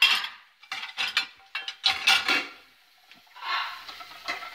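Dishes and cutlery clinking and clattering as they are loaded into a dishwasher rack: a run of sharp clinks over the first two and a half seconds, then a softer rustling noise about a second before the end.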